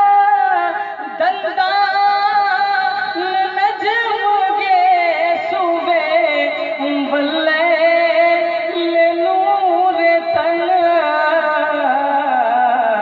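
Male naat reciter singing an Urdu devotional naat in long, wavering melismatic phrases.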